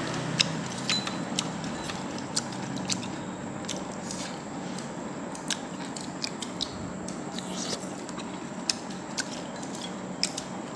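Chopsticks clicking lightly against porcelain bowls as fish is picked out and set down, with irregular clicks about one or two a second over a steady background hum.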